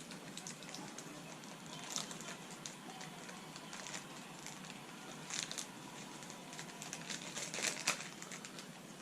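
Plastic packaging crinkling and rustling in short, faint bursts as a small mystery bag is handled and opened.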